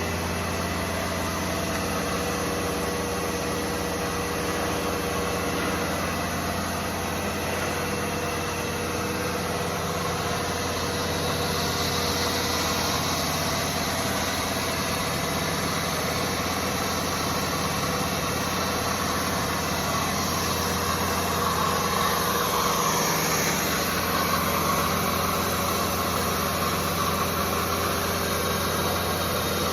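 A 22 kW two-stage variable-speed permanent-magnet screw air compressor running with a steady hum and whir. About two-thirds of the way through, a tone slides down in pitch and the sound gets slightly louder.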